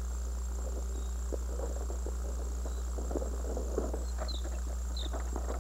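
Outdoor ambience of a steady high insect trill over a steady low hum, with scattered faint crackles and two short high chirps near the end.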